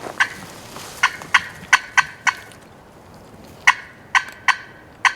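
Turkey calling: two runs of short, sharp notes in the style of hen cutting, about six in quick succession, then after a pause of about a second four more.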